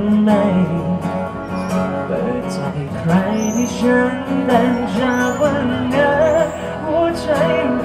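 Loud music with guitar and a singing voice playing at the fair.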